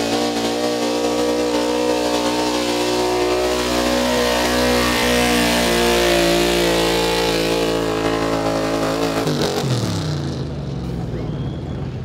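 A 1990s Ford pickup's engine at full throttle, pulling a weight-transfer sled, holding a steady high pitch. About nine and a half seconds in it backs off, the pitch falling as the pull ends.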